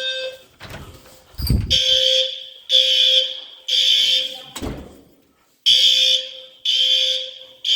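Building fire alarm sounding in the three-pulse evacuation pattern: three high blasts about a second apart, a pause, then three more.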